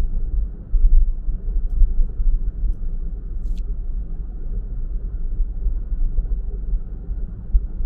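Steady low rumble of a car driving along a road: engine and road noise.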